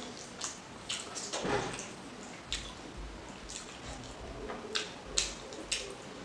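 Close-miked wet eating sounds: rice and fish curry eaten by hand and chewed, with irregular short wet clicks and smacks.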